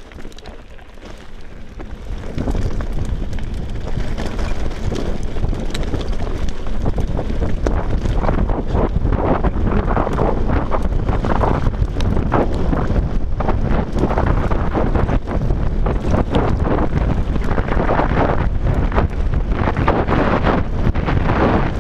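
Wind buffeting the action camera's microphone as a mountain bike rides down a loose gravel and rock track, with the rattle and knocks of tyres and bike over the stones. It builds over the first two seconds, then stays loud and steady.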